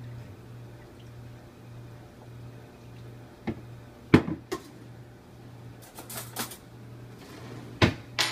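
Condiment bottles knocked and set down on a kitchen countertop and a bottle cap handled, a few sharp clicks and knocks with the loudest about four seconds in, over a steady low hum.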